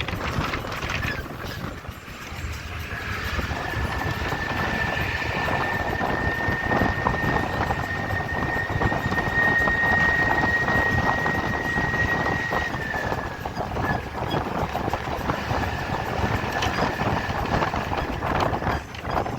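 Train running along the track with a steady rumble and rhythmic clacking, and a thin high squeal that sets in about three seconds in and holds until near the end.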